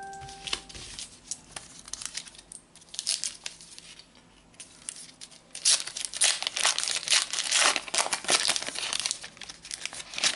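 Foil trading-card packet being crinkled and torn open by hand, with dense crackling that gets much louder and busier about halfway through.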